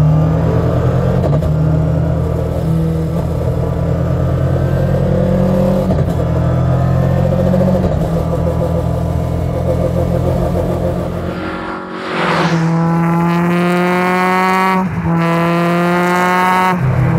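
Millington Diamond 2.7 four-cylinder twin-cam engine in an MST Mk2, pulling at fairly steady revs, then revving hard and rising in pitch from about twelve seconds in, with two quick sequential-gearbox upshifts near the end.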